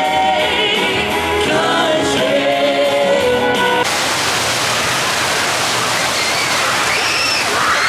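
A song with singing over band music, which cuts off suddenly about four seconds in to a steady rush of splashing water, with faint voices near the end.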